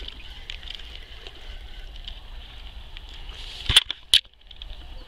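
Two loud knocks close together about four seconds in, from the camera being handled and swung round, over a steady high hiss with scattered faint ticks.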